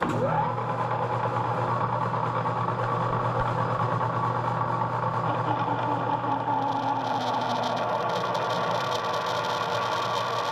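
Metal lathe switched on, briefly rising in pitch as it spins up, then running steadily with a motor hum and whine. From about six seconds in, a twist drill held in the tailstock cuts into the end of the hydraulic cylinder rod, adding a rough, scratchy cutting noise.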